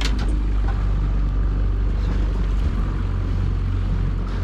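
Steady low rumble of a small fishing boat's outboard motor running, with a couple of sharp clicks near the start.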